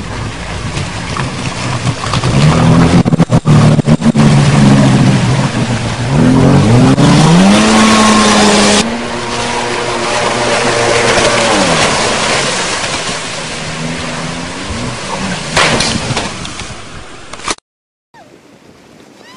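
Jet ski engine revving and pulling away, its pitch climbing and dropping with the throttle, over a loud rushing noise. The sound changes abruptly about nine seconds in and cuts off suddenly near the end.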